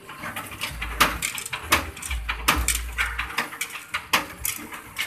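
Bamboo skewer-shaving machine cutting a bamboo strip fed through its rollers: a rapid, irregular run of sharp cracks and snaps as the bamboo is shaved, with a low rumble coming and going twice.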